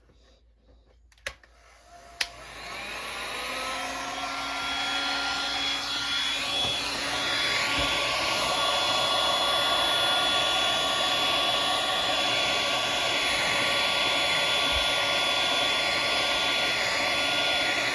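Electric heat gun switched on with a click about two seconds in, its fan spinning up over a few seconds to a steady blowing whine, heating heat-shrink tubing on a charging cord.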